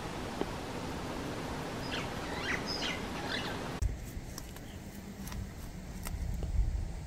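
A bird gives a few short chirping calls about two seconds in, over a steady hiss. A little past halfway the sound cuts off abruptly, and a low rumble with a few faint clicks follows.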